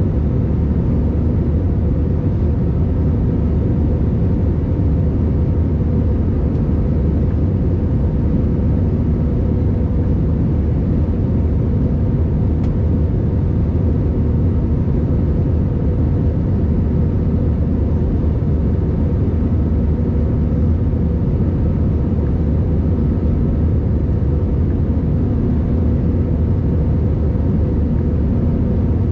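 Jet airliner cabin noise in flight: the steady low noise of the engines and airflow heard from a window seat, with a faint steady hum running through it.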